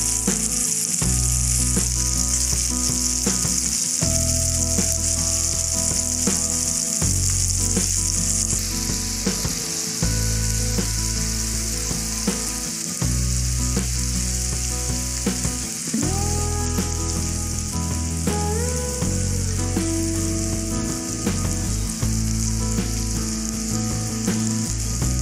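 Masala-coated fish steaks shallow-frying in oil in a nonstick pan: a steady sizzling hiss, easing slightly after about eight seconds as the fish browns.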